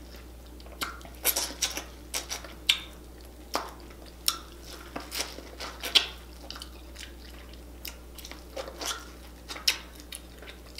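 Close-miked eating sounds: a person biting and chewing sauce-coated corn on the cob, a run of irregular short mouth clicks and bites.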